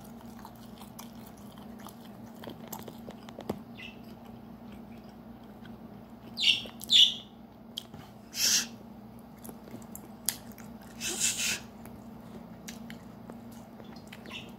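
Pet green parrot giving a handful of short squawks around the middle, over soft chewing and a low steady hum.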